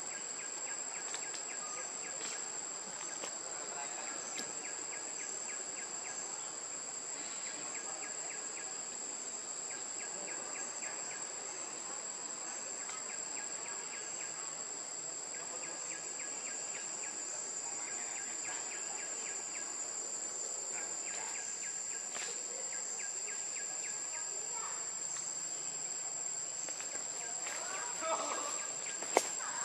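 Forest insects calling: a constant high-pitched whine with repeated trains of rapid chirping pulses, each a second or two long. Near the end a short rustle and a sharp click.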